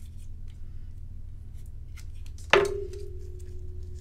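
Faint clicks of paper pieces being handled, then about two and a half seconds in a small hard craft tool knocks against the desk, followed by a ringing tone that fades slowly.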